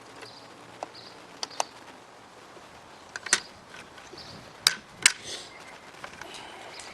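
Sharp clicks and knocks of FN PS90 rifle parts being handled and pressed together during reassembly, about seven in all, the loudest a pair about five seconds in.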